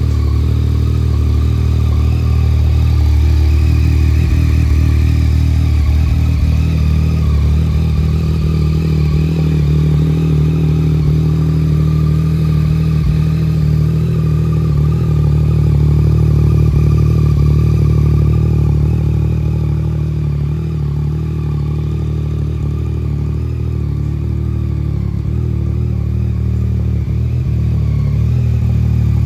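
Yamaha MT-09's inline three-cylinder engine running at a steady idle.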